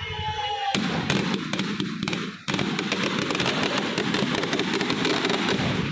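Firecrackers going off in a rapid, dense crackle, starting about a second in, with a short break near the middle.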